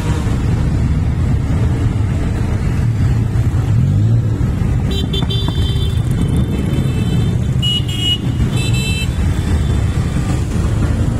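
A long column of motorcycles riding slowly past, many engines running at once in a dense, steady rumble. Horns beep over it about five seconds in, and twice more around eight to nine seconds.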